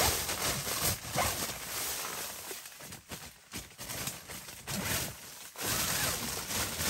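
Nylon tent fabric and clothing rustling in irregular bursts, with scuffs and small knocks, as a person crouches and shifts through the tent door. It is louder at the start and again near the end, with a quieter stretch in the middle.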